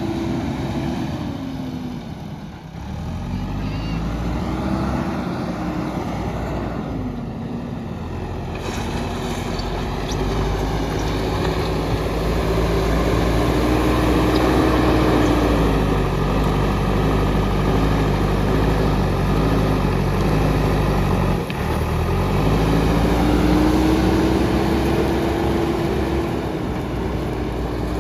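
JCB backhoe loader's diesel engine running hard, its pitch dropping and climbing again several times as the revs change under load.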